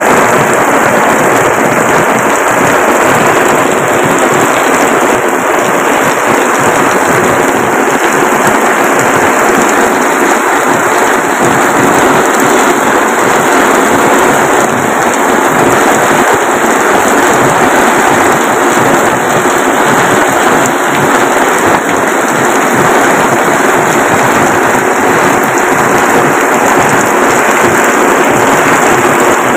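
Heavy downpour falling on a waterlogged road, a loud, steady hiss of rain.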